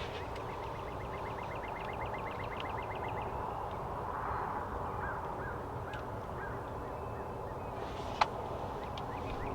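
Wild turkeys calling softly in spring woods, under a songbird's fast, even trill that runs for about three seconds at roughly nine notes a second. A single sharp click sounds near the end.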